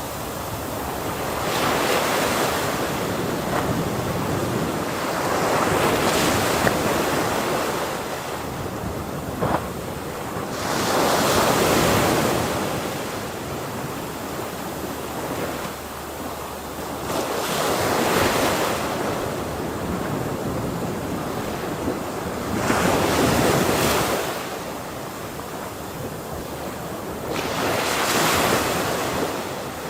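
Ocean waves breaking on a shore, six surges of crashing surf at intervals of about five seconds, with a steady rush of washing water in between.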